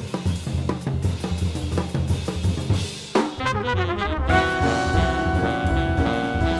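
Jazz recording: drum kit playing busy fills over upright bass, then about three seconds in the trumpet and saxophone come in together and hold long notes over the drums.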